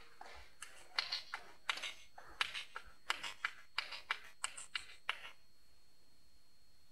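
Table tennis rally: the ball clicking quickly against rackets and table in a rapid, uneven run of sharp ticks for about four and a half seconds, then it stops as the point ends.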